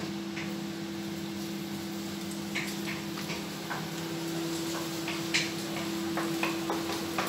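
Stovetop cooking: scattered light clicks and taps of a utensil against a frying pan, coming more often in the last couple of seconds, over a steady hum.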